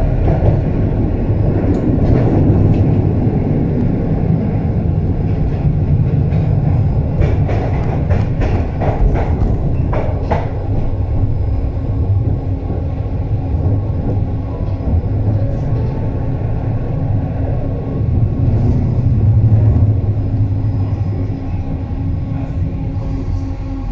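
HF 11 AC tram running along the track: a steady rumble of wheels and drive. A run of short clicks and knocks comes about seven to ten seconds in, and a steady hum joins in through the second half.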